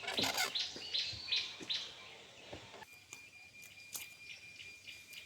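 Birds chirping: a quick run of short repeated chirps, then after about three seconds a thin steady high whistle-like tone with faint scattered ticks.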